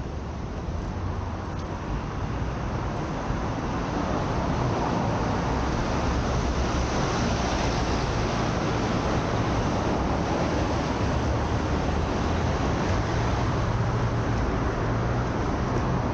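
Steady road traffic noise, a continuous rushing roar that grows louder a few seconds in and then holds.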